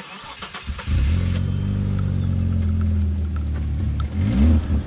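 The Audi Allroad's 2.7-litre twin-turbo V6 comes in abruptly about a second in after a few clicks, then runs steadily at low revs. Near the end a short rev rises and falls.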